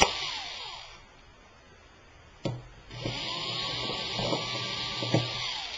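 Cordless power screwdriver backing out the screws of a laptop's LCD bezel: its motor whine winds down within the first second after a sharp click. After another click about two and a half seconds in, it runs again for about two and a half seconds and winds down near the end.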